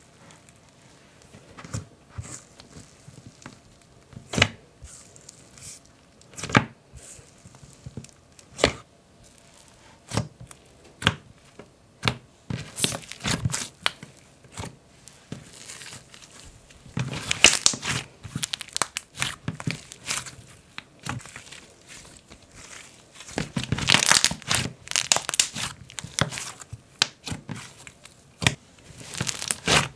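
Soft cloud cream slime being poked and pressed by fingers. At first single sticky pops come every couple of seconds; later, denser bouts of crackling come as it is squished, loudest about halfway in and again a little past three-quarters of the way through.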